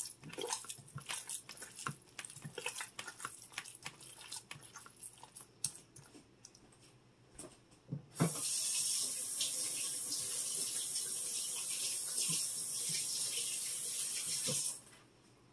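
Hands mixing raw ground beef in a glass bowl: a quick run of small wet squelches and clicks. About eight seconds in, a kitchen faucet is turned on with a knock and runs steadily into a stainless sink, then is shut off sharply near the end.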